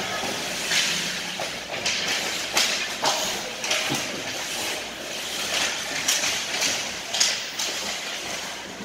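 Ice hockey play on the rink: skate blades scraping and hissing on the ice, with several sharp scrapes and clacks of sticks and puck spread through.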